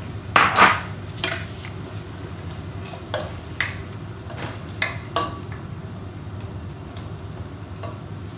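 A utensil stirring a sauce thickened with flour in a pan, with irregular clinks and scrapes against the pan, loudest about half a second in, over a steady low hum.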